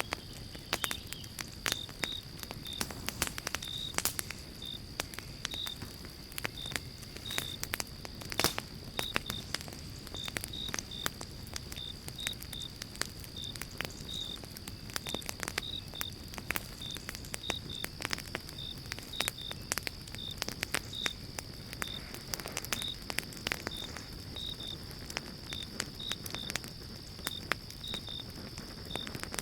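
Wood fire crackling in a fireplace: irregular sharp pops and snaps over a soft hiss, with one louder pop about eight seconds in. Throughout, a thin steady high tone and short high chirps repeat about one to two times a second.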